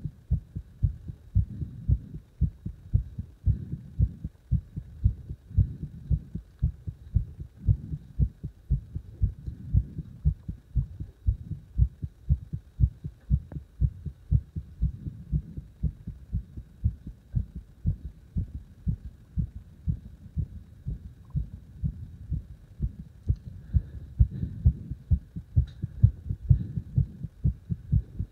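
Recorded heartbeat with a strong pulse: a steady, regular run of low thumps.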